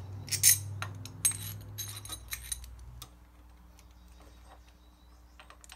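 Small steel hardware (a socket, washer and nut) clinking as it is handled and fitted onto a carriage bolt to make a bushing press. There are several sharp metallic clinks in the first three seconds, then a faint steady hum.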